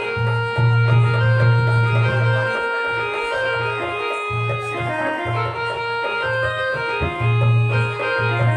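Keyboard music in an organ voice: a melody moving note by note over held chords, with a low bass note that pulses on and off.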